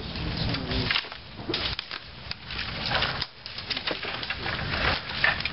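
Branches and sticks being handled and broken: a rapid, irregular series of cracks and snaps of wood with rustling twigs.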